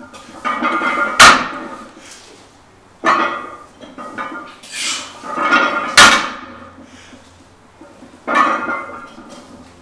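Heavily loaded barbell being deadlifted for repeated reps at 435 lb: the plates clink and rattle as the bar moves, and twice a loud clank as the bar is set back down on the floor, about a second in and again about six seconds in.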